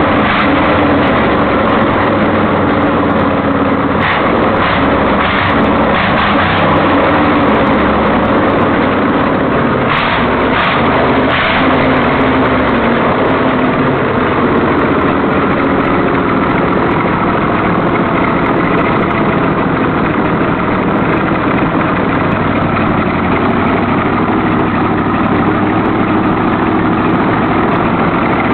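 Early-1970s Chevy V8 idling with no headers or exhaust, extremely loud from its open exhaust ports. Several short sharp bursts come about four seconds in and again about ten seconds in, then it runs steadily.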